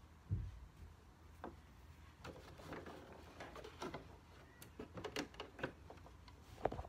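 Pinned cotton fabric being handled and positioned on a sewing machine bed before stitching: a soft low thump near the start, then light rustling and scattered small clicks.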